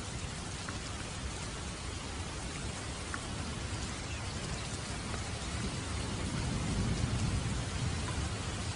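Steady rain falling. A low rumble of distant thunder swells and peaks about three-quarters of the way through.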